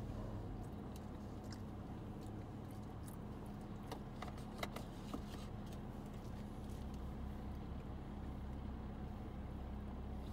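Low, steady rumble and hum inside the cabin of a car standing at a traffic light with its engine idling, with a few faint, irregular clicks around the middle.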